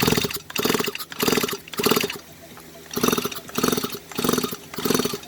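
Stihl MS 170 chainsaw cranked over by its pull-start cord with the spark plug out and the muffler off: eight quick pulls, one about every 0.6 s, each a short whirring rush, with a brief pause after the fourth. The engine turns over without firing.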